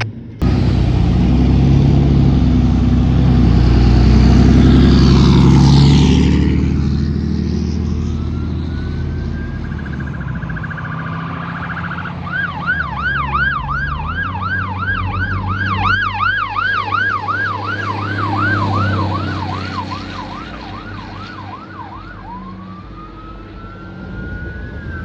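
Fire engine setting off on an emergency call: its engine runs loudly for the first several seconds, then its electronic siren winds up in a slow rising wail. About twelve seconds in the siren switches to a fast yelp, and near the end it goes back to a rising wail.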